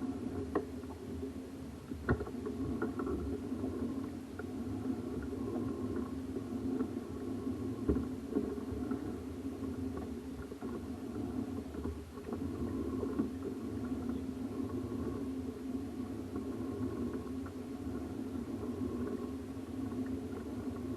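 A steady motor hum, with a few sharp clicks and knocks in the first half.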